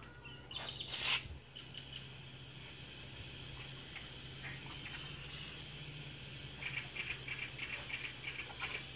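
Compressed air hissing briefly about a second in as the shop air line pressurizes the Hypertherm Powermax 45 plasma cutter's filter-regulator. A faint low hum follows, and near the end a run of quick faint chirping ticks.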